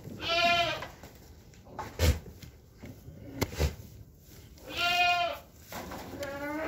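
Goats bleating: three long wavering bleats, the last one fainter, with a couple of dull thumps between them around the pen.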